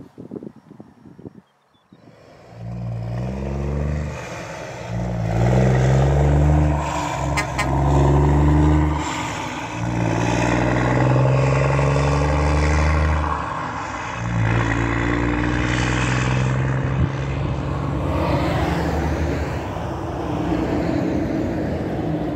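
Argosy cab-over truck's 620 Cummins diesel through an 8-inch straight-pipe single stack, pulling away under load and working up through the gears. The loud engine note climbs, dips at each shift about every four to five seconds, then climbs again, starting about two seconds in.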